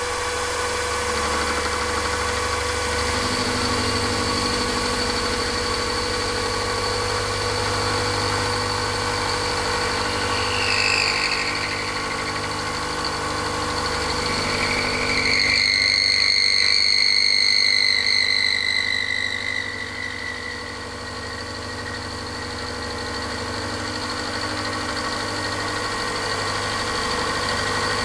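Milling machine running, its end mill cutting the rounded end of a small metal crankshaft web turned on a rotary table. A steady hum runs under it, and a high-pitched squeal from the cut rises briefly about a third of the way in and again for several seconds past the middle, sliding slightly down in pitch.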